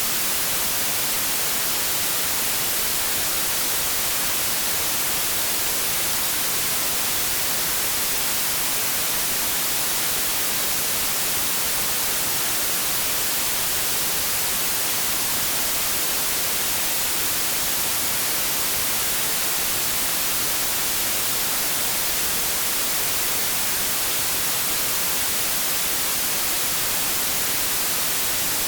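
Continuous white-noise static: an even, unchanging hiss, brightest in the treble.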